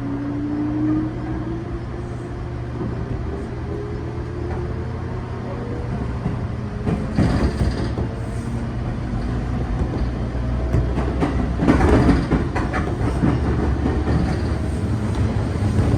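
415 series electric multiple unit train running, a whine rising in pitch over the first several seconds over a steady low hum. Louder bursts of clatter come about seven and about twelve seconds in.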